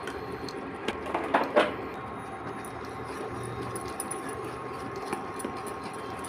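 A steady hum, with a few short knocks and scrapes a little under a second to just over a second and a half in, typical of kitchen work.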